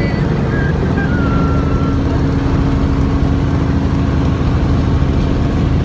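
Helicopter running: a loud, steady mechanical hum with several fixed low tones over a continuous noisy drone.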